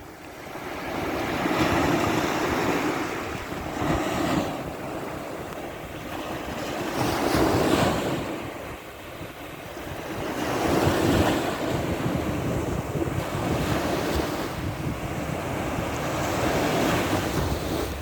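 Sea surf: waves breaking and washing in, swelling and ebbing about every three seconds, some six surges in all. Wind buffets the microphone with a low rumble.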